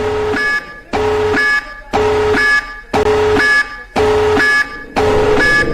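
Alternative Emergency Alert System alarm tone: a loud electronic beep about once a second, each beep a low tone stepping up to a high tone, with short gaps between.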